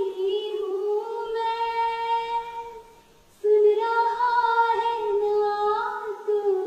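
A schoolgirl singing solo and unaccompanied in long, held phrases, with a short break for breath about three seconds in.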